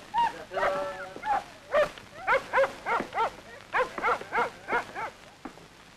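A dog barking in a quick run of about ten short barks, roughly three a second, starting about two seconds in and stopping near five seconds.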